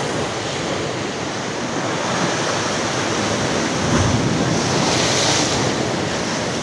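Sea surf washing on a rocky shore, a steady rushing hiss mixed with wind on the microphone, swelling louder about four to five seconds in.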